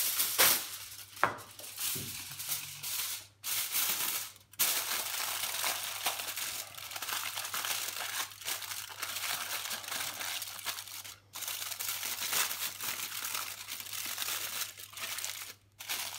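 Aluminium foil crinkling and crackling as it is handled, torn and pressed into shape by hand, with a few brief pauses.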